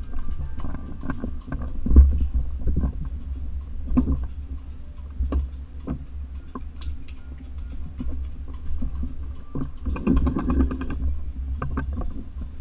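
A child's push tricycle rolling across the floor: a steady low rumble with scattered knocks and rattles, picked up through a camera mounted on its handlebar.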